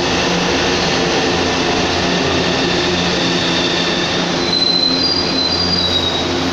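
A São Paulo Metrô subway train running past along the platform: a steady rumble of wheels on rail with a low motor hum. About four and a half seconds in, a high wheel squeal sounds for a second or two.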